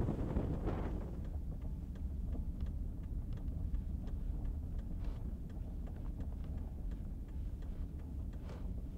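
Steady low road and engine rumble heard inside a moving car's cabin, with faint scattered ticks. A louder rush of wind on the microphone dies away in the first second.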